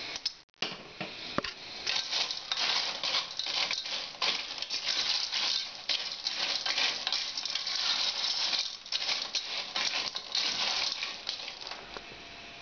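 Periwinkle shells clattering against each other and the sides of a stainless steel pot as they are stirred with a wooden spoon during cooking: a dense, continuous run of small clicks and rattles.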